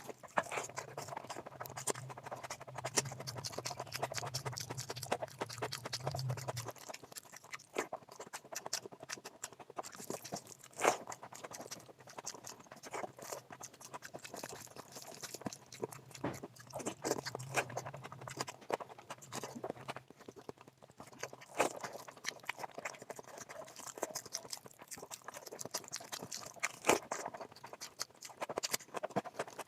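Close-up eating sounds: chewing mutton fat curry and rice, with many small wet mouth clicks and occasional louder crunches. A low steady hum runs under it for the first six or seven seconds.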